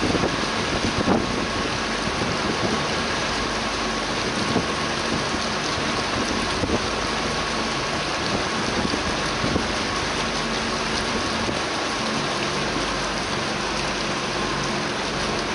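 Motorboat under way: a steady rush of water and spray churning along the hull, with the boat's engine humming underneath.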